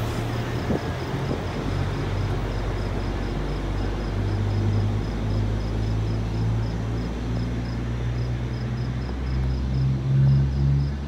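Deep, steady drone of a train's diesel engine, swelling and easing, loudest near the end. Over it, a faint high chirping repeats about four times a second.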